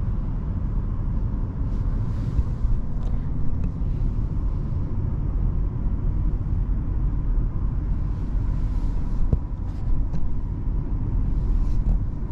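Interior cabin noise of a 2023 Mini Countryman John Cooper Works cruising in Green mode: a steady low rumble from the road and engine, with a faint hum, decently quiet.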